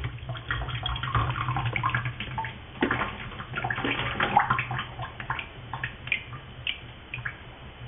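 Galley pump being primed in a bucket of water: irregular splashing and gurgling as water is drawn through and spat out, busiest in the first half, over a low steady hum.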